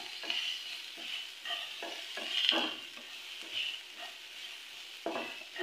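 A spatula stirring and scraping through onions and green chillies sautéing in hot oil in a wok-shaped pan, with scraping strokes roughly once a second over a steady sizzle.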